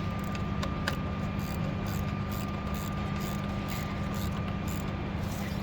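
Steady low mechanical hum with a faint high tone, and a few light clicks of hand tools as the bolts of a battery terminal repair clamp are tightened.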